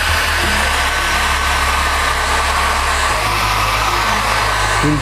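Hand-held hair dryer blowing steadily with a thin steady whine, drying the airbrushed paint on a T-shirt between coats.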